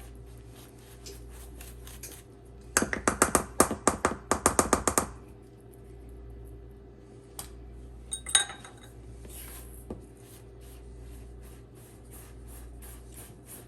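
A utensil stirring crushed pretzels into melted butter in a mixing bowl: a quick run of loud clicks against the bowl about three seconds in, a single clink a few seconds later, then softer, evenly spaced scraping strokes.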